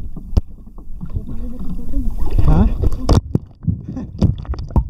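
Sea water sloshing and splashing around a microphone held at the surface, the sound turning muffled and gurgling as it dips under, with a few sharp knocks and splashes: one about half a second in, one about three seconds in, and several near the end.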